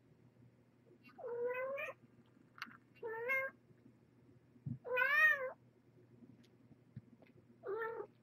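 A cat meowing four times, each meow a short pitched call, the third the loudest, rising then falling in pitch.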